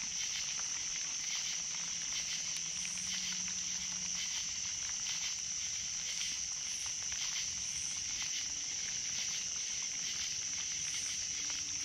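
A night-time chorus of crickets or similar insects: a steady, high trill with a fainter pulsing chirp above it.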